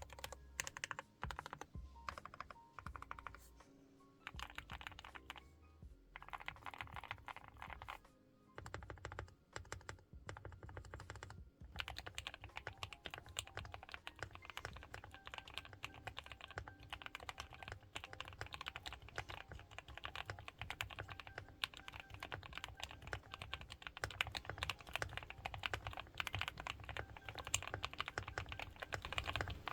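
Typing on a GMK67 mechanical keyboard with lubed Gateron Milky Yellow Pro linear switches, tape- and polyfill-modded for a "thock & cream" sound. Keystrokes come in short, broken runs at first, then settle into fast continuous typing from about twelve seconds in.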